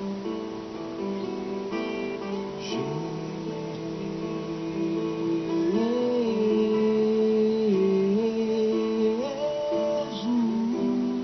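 A man singing a slow worship song with long held notes over acoustic guitar accompaniment; his voice comes in about three seconds in, over the guitar.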